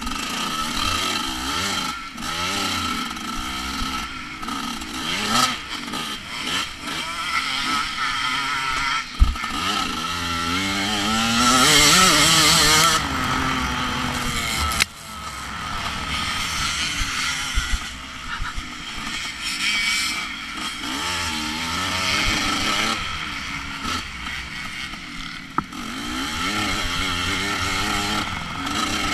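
Dirt bike engine revving hard, its pitch climbing and dropping again and again as the rider works the throttle and gears over rough ground. A loud rush of noise comes in about twelve seconds in, and there are a few sharp knocks.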